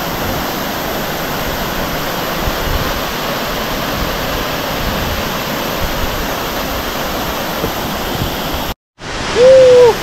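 Steady, dense rush of a large waterfall. Near the end the sound cuts out for a moment, and a short loud cry follows.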